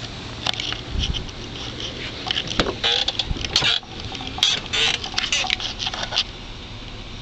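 Irregular clicks, rattles and knocks as the front door of a 2001 Chevrolet Tahoe is opened and handled, with a dull thump about a second in; the clicking stops about six seconds in.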